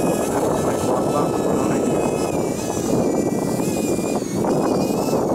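Electric ducted-fan motor (4200 kV EDF) of a radio-controlled boat running, a steady high-pitched whine that wavers slightly in pitch, over a loud rushing noise.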